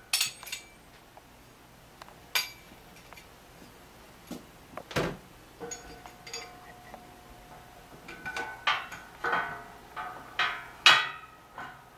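Machined aluminium banner-pole clamp pieces and a metal rod clinking and knocking against each other and the pole as the clamp is fitted. A few scattered single knocks at first, then a quicker run of ringing clinks over the last few seconds.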